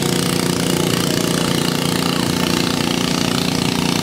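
Small garden tractor engine running hard at steady, unchanging speed as the tractor drags a weight-transfer sled down the pulling track.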